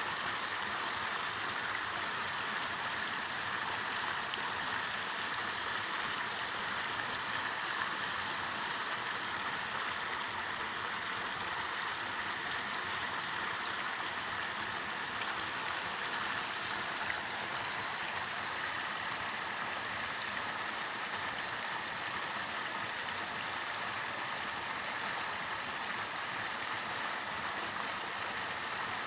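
Steady, even hiss of water, unchanging throughout, with no separate splashes or knocks standing out.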